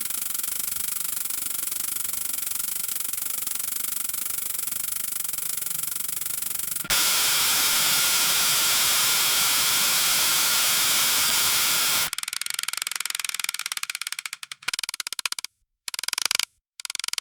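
Grain streaming into a combine harvester's grain intake, a dense steady hiss with a faint whine running through it. It steps louder about seven seconds in, then breaks into a rapid stuttering rattle with short gaps near the end.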